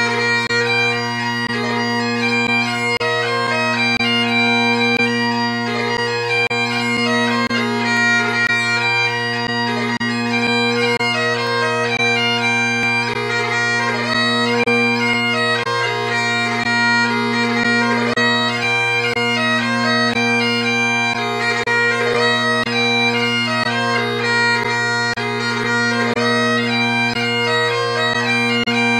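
Highland bagpipes playing a tune over steady, unbroken drones.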